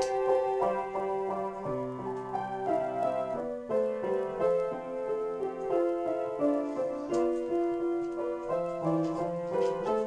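Piano played as a free improvisation: held chords under a melody, the harmony shifting every second or so, with deeper bass notes coming in and dropping out.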